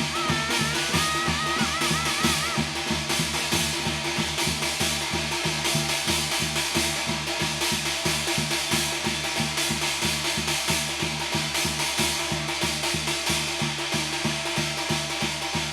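Korean shaman ritual (gut) music: fast, steady drumming with clashing cymbals. A high, wavering melody line sounds over the beat for the first couple of seconds, then the percussion carries on alone.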